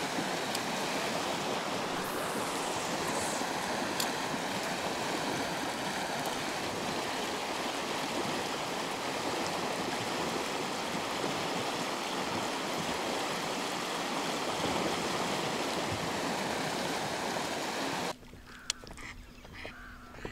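Rushing river water, a loud, steady, even rush that cuts off sharply about eighteen seconds in. After that it is much quieter, with a few short bird calls over a faint low hum.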